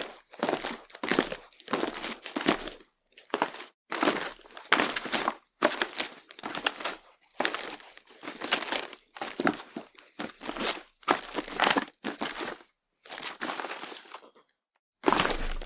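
Footsteps on a crunchy surface, a steady walking pace of about two steps a second, each step a short crunch. The steps pause for about a second near the end, then resume.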